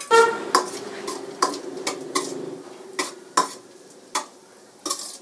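A spatula clinking and scraping against a kadhai as chopped nuts are stirred while frying in ghee: irregular sharp clinks, about two a second, over a faint sizzle.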